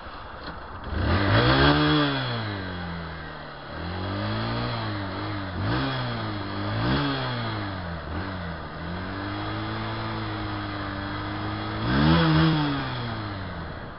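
Motorcycle engine revving up and down with the throttle: a big rise and fall of revs about a second in, several shorter blips in the middle, a steadier stretch, and another rev near the end.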